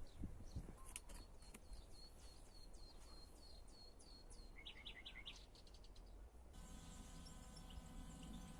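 A songbird sings a fast series of about ten high, down-slurred notes, then a quicker, lower run of notes and a few short ticks. About six and a half seconds in, a steady hiss with a faint hum cuts in abruptly.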